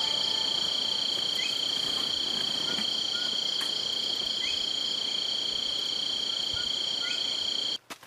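A steady, high-pitched insect drone, with a faint short rising bird note heard three times about three seconds apart. The drone stops abruptly just before the end.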